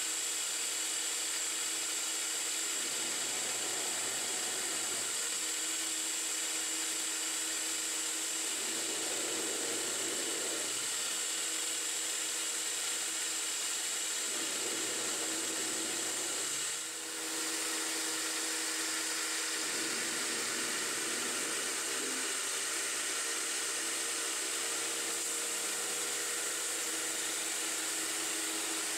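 Benchtop 9x20 CNC metal lathe running a turning cycle on a spacer: a steady high hiss with a thin high whine, over a motor hum whose pitch shifts every few seconds as the program moves the tool from cut to cut. The sound briefly dips about halfway through.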